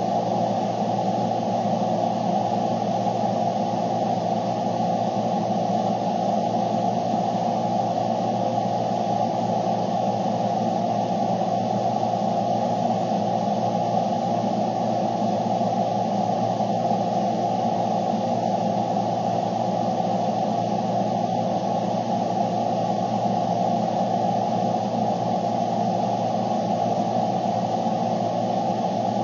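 Steady, unchanging noise with a low hum, like static, with no distinct events.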